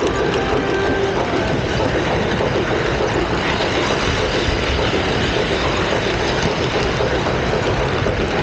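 Model train running along its track, heard from a camera car riding in the train: a steady rattle of wheels on the rails.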